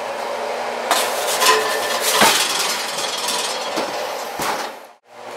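Wooden pizza peel scraping and knocking against the oven rack as a pizza is slid off it into the oven, with a few sharp clatters; it cuts off abruptly near the end.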